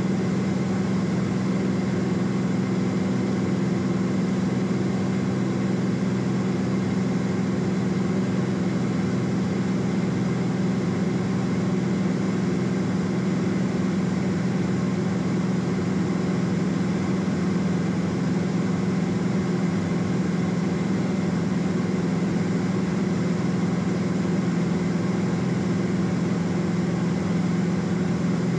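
Steady in-flight drone of a Cessna P210 Centurion's turbocharged six-cylinder engine and propeller, heard inside the cabin: an unchanging low hum with several even tones over a wash of noise.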